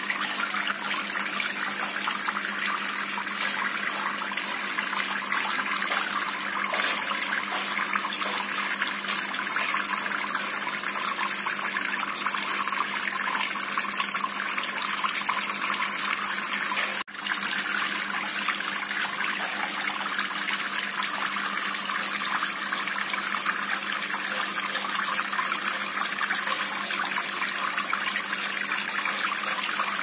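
Water from a small homemade tiered tabletop fountain splashing steadily as thin streams pour from the rim of the upper pebble tray into the lower bowl, with water bubbling up out of the pipe on top. A faint steady low hum runs underneath, and the sound drops out for an instant about two-thirds of the way through.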